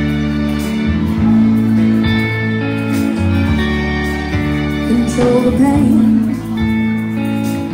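Live band playing a song: electric bass, drums and electric guitar, with a woman's voice, and a wavering melody line about five seconds in.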